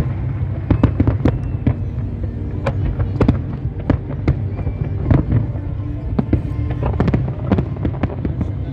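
Fireworks display: many sharp bangs and crackles of bursting shells in quick, irregular succession over a steady low rumble.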